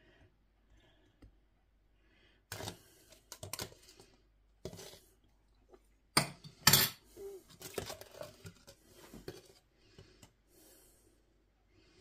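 Metal spoon scraping and clinking against a cup of thick lemon sugar icing as the glaze is scooped out: a scattered run of clicks and scrapes, loudest about six seconds in.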